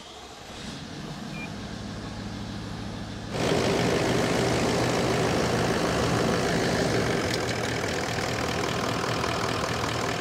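Toyota LandCruiser 200 Series twin-turbo V8 diesel idling steadily on its first run after a water pump and thermostat replacement. A little over three seconds in, the sound abruptly becomes much louder and fuller, then holds steady.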